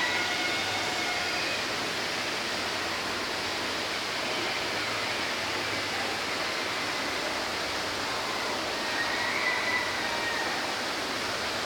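Steady, even rushing outdoor background noise, with a few faint short bird whistles near the start and again about nine seconds in.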